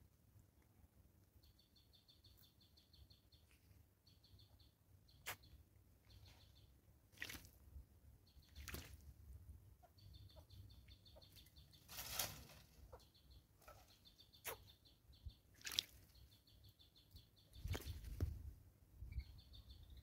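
Grey go-away-bird bathing in a shallow bird bath: a series of short splashes and wing flutters in the water, the loudest about twelve seconds in. Behind it, small birds give runs of rapid, high-pitched chirps.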